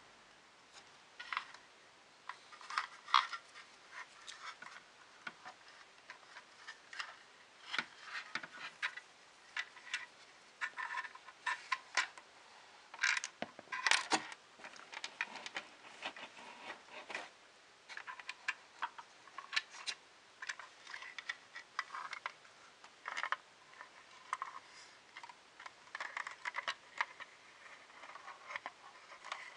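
Irregular small clicks, taps and rustles of hands handling small printer parts and a cable during assembly, with a few sharper ticks about 3 and 14 seconds in.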